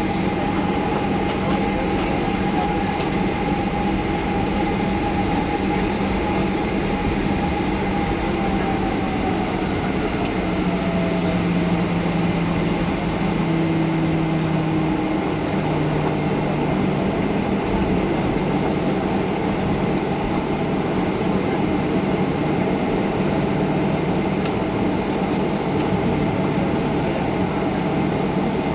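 Boeing 737-800 jet engines running at taxi power, heard inside the cabin, over the steady rumble of the airliner rolling along the taxiway. An engine whine slides a little lower in pitch about ten seconds in.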